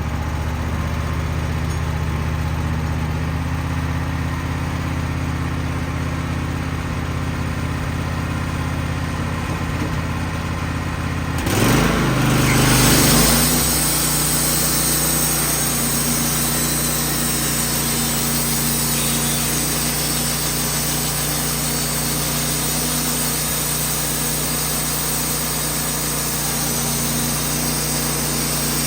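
Wood-Mizer band sawmill's engine idling steadily, then revving up about twelve seconds in and settling into a steady higher-speed run with a hiss added on top.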